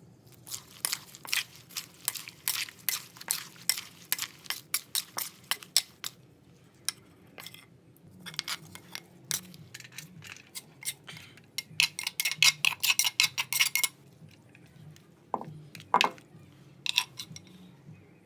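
Dishes and utensils clinking: many short, sharp clicks in irregular runs, with a dense rapid run about twelve seconds in and a couple of duller knocks near the end.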